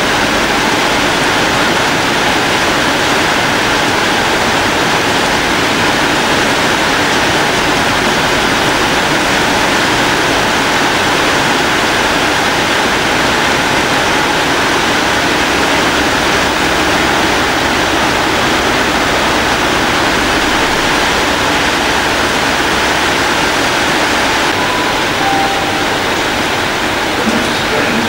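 Heavy rain pouring down, a steady, loud hiss with no break.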